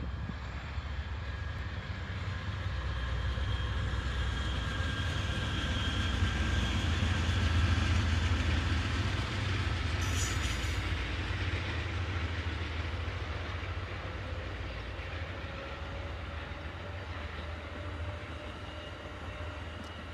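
Amtrak passenger train passing: a GE P42 diesel locomotive followed by a long string of double-deck Superliner cars rolling over the rails. The low rumble builds to its loudest about eight seconds in, then eases as the cars go by, with faint steady high wheel ringing and a short hiss about ten seconds in.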